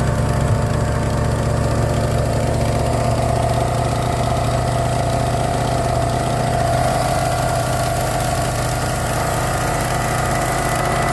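Boat's motor engine running steadily at idle, a low engine hum with a steady higher drone over it.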